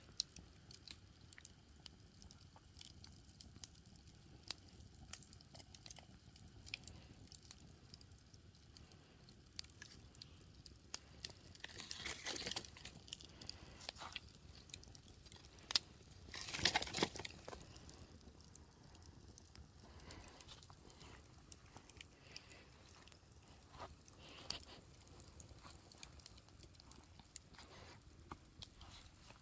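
Wood campfire crackling, with many small sharp pops scattered irregularly and two louder, short rushing swells midway through.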